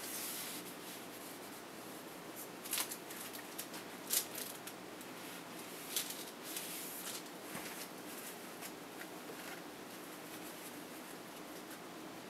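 Handling noises: parchment paper rustling and a few light, sharp clicks as gloved hands work at a metal dish, over a steady low hiss.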